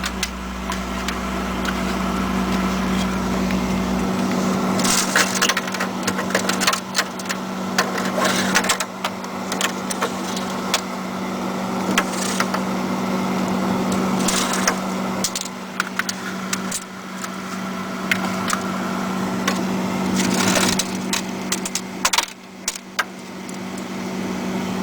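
Frost and ice that has been loosened by steam from a pan of boiling water being broken and pulled off a freezer's inside walls by hand: irregular cracks, crunches and scrapes. A steady low hum runs underneath.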